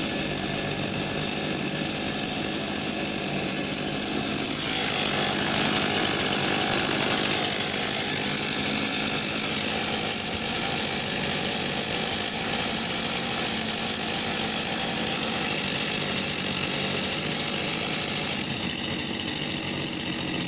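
Two-stroke STIHL chainsaws, an MS 261 C-M and an MS 391, idling side by side with a steady engine buzz. About four and a half seconds in, the sound turns brighter and a little louder.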